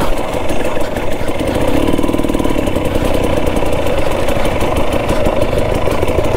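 KTM 250 XC-W TPI two-stroke dirt bike engine running steadily at low revs.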